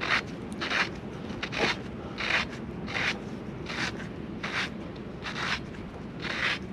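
Repeated short scraping strokes at an even pace, about one every three-quarters of a second.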